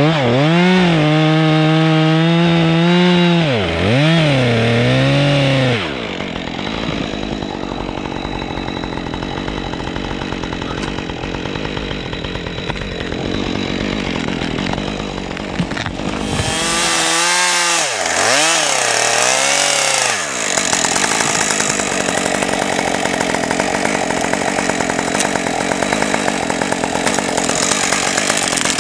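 Husqvarna 545G Mark II two-stroke chainsaw running at high revs, then sawing into the base of a tree trunk under load. About two-thirds of the way through it revs free again briefly, with a couple of quick drops in revs, then goes back into the cut.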